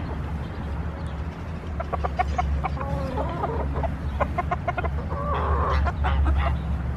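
A flock of hens with a rooster clucking as they feed: many short clucks from about two seconds in, then a longer call about five seconds in, over a low steady rumble.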